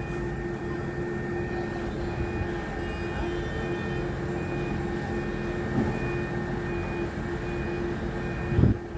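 Heavy crane machinery running steadily while holding a suspended gantry beam: a continuous engine and drive drone with a steady mid-pitched whine, and a faint high beep repeating at even intervals. A brief, louder low surge that rises and falls in pitch comes about a second before the end.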